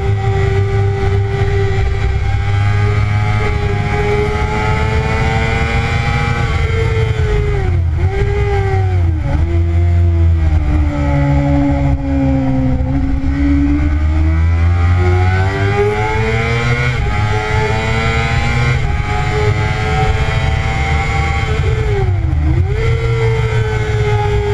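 2009 Kawasaki ZX-6R's 599 cc inline-four engine running at high revs on track, with wind rushing over the onboard microphone. Its pitch holds steady, dips briefly twice about eight and nine seconds in, sinks low through the middle, then climbs steadily as the bike accelerates, with one more quick dip near the end.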